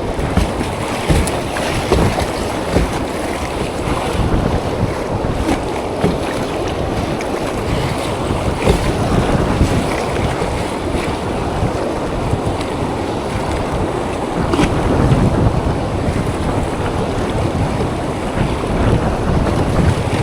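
Loud rushing whitewater of river rapids around a kayak, with wind buffeting the microphone and irregular sharp surges in the noise.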